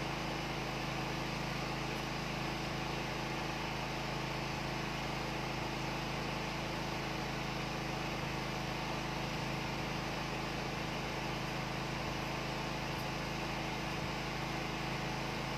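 Steady low hum and hiss of room noise, unchanging throughout.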